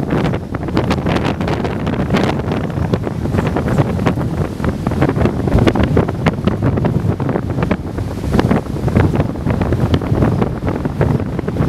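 Strong gusty wind buffeting the microphone over heavy breaking surf.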